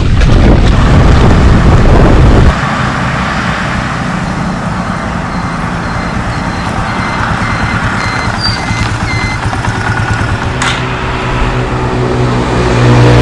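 Vehicle on the move: steady road and engine noise, louder for the first two seconds or so, with a low engine hum growing near the end.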